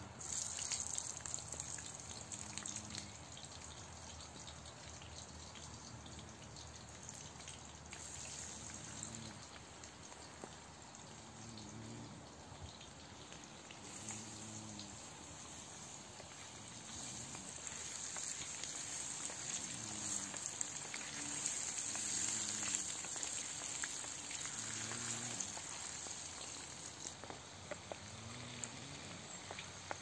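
Potato sticks sizzling as they fry in hot oil in a pan over a wood fire, a steady crackling hiss. The sizzle jumps up right at the start as the potatoes are dropped in, and swells again in the second half.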